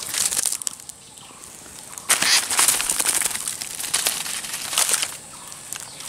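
A small bird caught in a twig snare on the forest floor, flapping and struggling against dry leaves and twigs. It comes in rustling bursts, the loudest starting about two seconds in.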